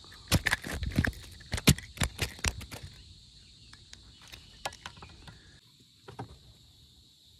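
A quick run of sharp clicks and knocks in the first three seconds, then a few scattered clicks, over a steady high-pitched hum.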